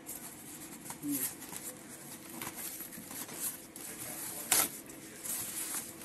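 Rustling and crinkling of white packing sheets being handled and pulled out of a top-loading washing machine's tub, in short bursts, the loudest about four and a half seconds in.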